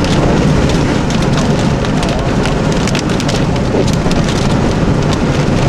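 Raindrops hitting the car's windshield and roof as many short sharp ticks, over the steady low rumble of the car driving slowly.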